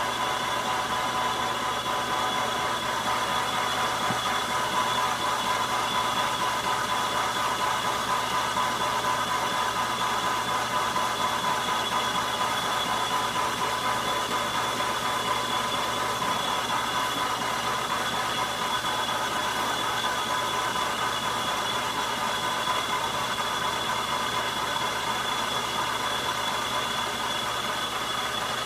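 Logan metal lathe running steadily under power, a continuous mechanical hum and rattle with a steady high whine from its drive and gears.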